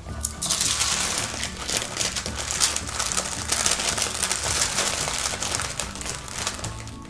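Parchment baking paper crinkling and rustling as it is folded and pressed around a sandwich to wrap it. It starts just after the beginning and eases off near the end.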